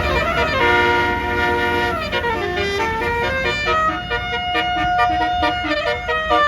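Bus basuri telolet horn playing a melody: a held chord for about two seconds, then a run of short stepping notes with one longer high note, over a low engine rumble.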